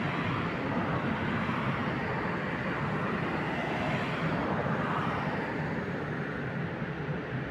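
Steady hum and rush of an electric locomotive standing at a station platform, swelling slightly about four seconds in.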